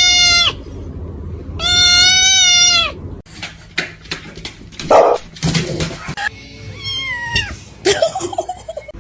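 A domestic cat giving long, loud, drawn-out meows: one ending about half a second in and another of about a second starting near two seconds in. Scattered knocks follow, and a shorter meow falling in pitch comes near the end.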